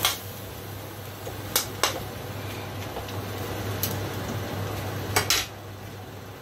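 Metal spatula clanking and scraping against a steel wok while stir-frying cabbage and pork. There are about six sharp clinks, two close together near the end.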